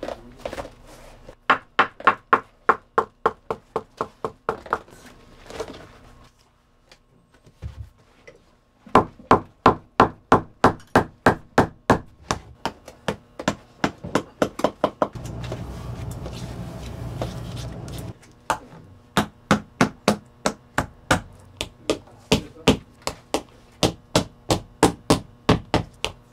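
Shoemaker's hammer striking the boot leather in runs of quick, even blows, about three a second, with short pauses between runs. A few seconds of steady machine noise come in the middle.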